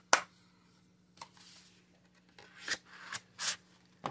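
Plastic DVD case handled in the hands: a sharp snap just after the start, a small click about a second in, then several short rubbing and scraping sounds of skin and plastic with small clicks.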